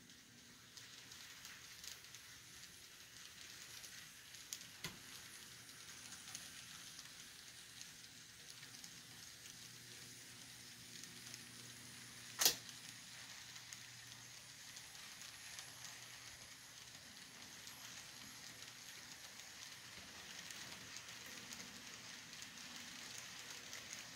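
Faint steady hiss with light crackling and a low hum, broken by one sharp click about halfway through.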